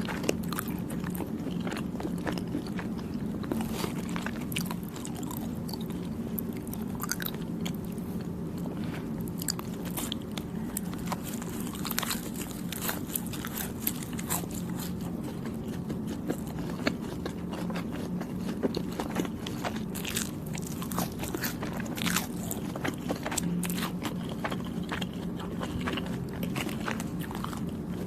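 Close-miked chewing of soft, chewy Thai desserts: sticky, moist mouth sounds with frequent small clicks, over a steady low hum.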